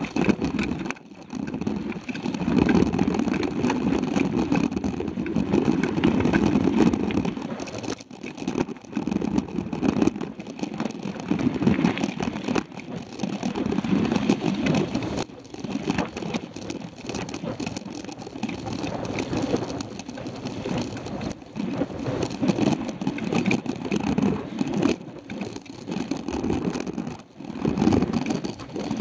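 Mountain bike riding fast on a dirt road, heard from a handlebar-mounted camera: a low rumble of wind and tyre noise that swells and fades, with frequent knocks and rattles as the bike bounces over bumps.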